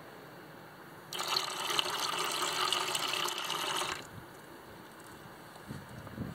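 Water running from a gravity-fed sink's stainless spout into a plastic bucket. The ball valve opens about a second in, and the flow shuts off abruptly about three seconds later.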